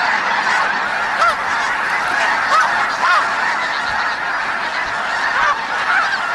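A huge flock of snow geese calling all at once: a dense, continuous din of honking, with single calls standing out from it again and again.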